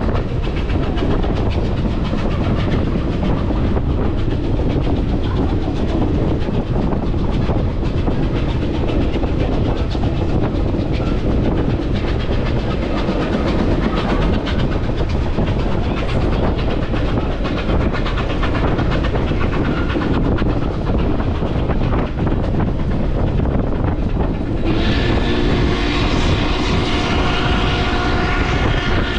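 Passenger train rolling along the track: a steady rumble with the clickety-clack of wheels over rail joints. Near the end a louder, brighter sound with several steady pitches joins it.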